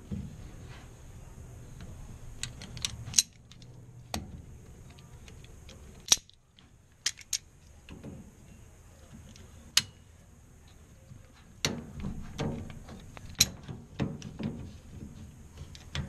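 Pliers and spring hose clamps clicking and rattling as the clamps are fitted back onto the hoses of a washing machine drain pump: a scatter of sharp, irregular metal clicks.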